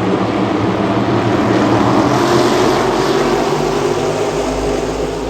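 Race cars passing at speed: loud engine noise that swells to a peak about two seconds in, then fades away.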